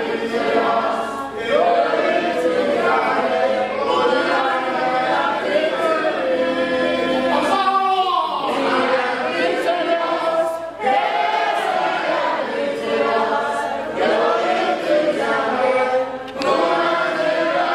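A congregation singing a victory song together, many voices in chorus: 'We are victorious! Yes we are victorious! Glory to Adonai, who has given us victory!'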